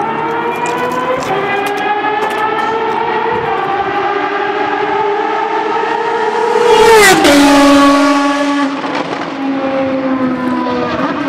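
Ferrari FXX's V12 at full throttle, accelerating down the straight with a rising howl broken by two upshifts. About seven seconds in it passes the microphone at its loudest, with a sharp drop in pitch, then fades away.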